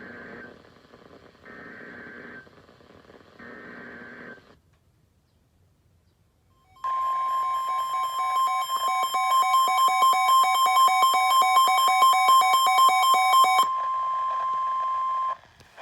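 NOAA Weather Radio alert opening: three one-second bursts of SAME header data tones, a short pause, then the 1050 Hz warning alarm tone held steady for about eight seconds. Over the first seven seconds of the tone, a weather radio's own rapid electronic beeping alarm sounds. This is the start of a severe thunderstorm warning broadcast.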